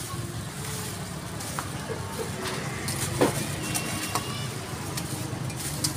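A cleaver chopping chicken on a wooden chopping block: several sharp, separate knocks over a steady low hum.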